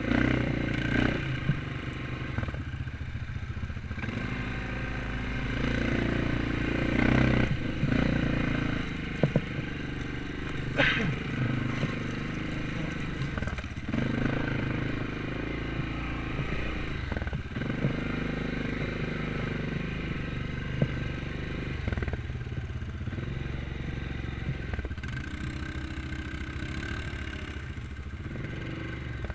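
Single-cylinder quad bike engines running at low speed, the engine note rising and falling as the throttle is worked through rough ground. A few sharp knocks and clatter from the machine jolting over bumps.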